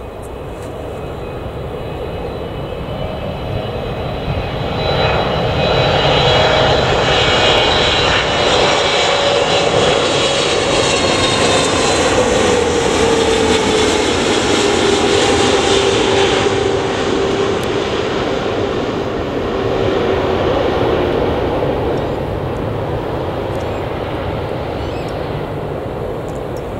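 A Boeing 777-300ER's GE90 turbofan engines on final approach, passing low overhead. The jet noise builds to a loud peak, with whining tones that drop in pitch as the airliner goes by, then fades away.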